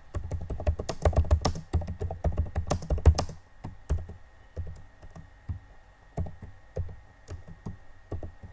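Typing on a computer keyboard: a quick, dense run of keystrokes for about the first three seconds, then slower, scattered keystrokes.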